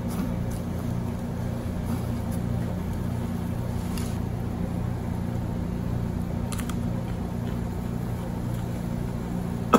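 Quiet eating with metal chopsticks: a few faint clicks and chewing over a steady low machine hum.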